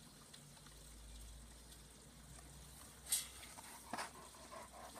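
German shepherd starting to dig in loose soil: about three seconds in, a sharp scrape of claws and spraying dirt, then another stroke about a second later.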